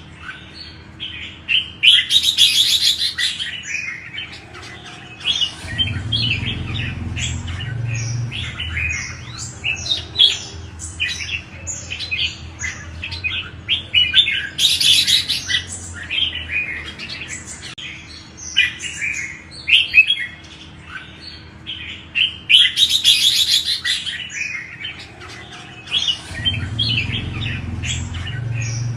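Red-whiskered bulbuls singing: quick runs of short, bright chirps and whistled phrases, broken three times by louder, denser bursts of chatter. A low rumble runs underneath twice.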